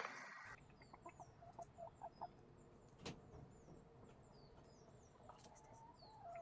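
Chickens clucking faintly: a quick run of short clucks about a second in and a longer drawn-out call near the end. Small birds chirp high in the background, and there is a single sharp click about three seconds in.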